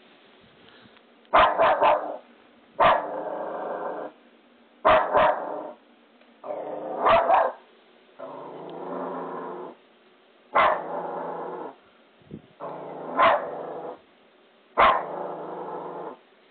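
Small curly-coated dog barking at something by the bed. Sharp barks, singly or in quick pairs, alternate with growls about a second long, over and over.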